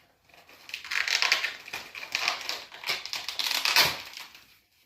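Crinkling, rustling handling noise in several swells lasting about a second each.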